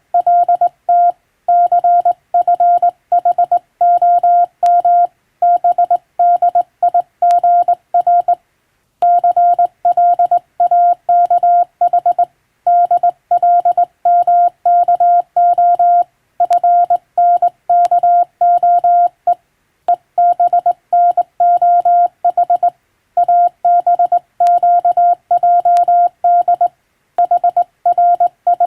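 Morse code sent by hand on a telegraph key and heard as a single steady mid-pitched beep, switched on and off in dots and dashes. The elements come in quick runs of characters, with a few longer pauses between groups. It is the sending of English-language telegram practice text.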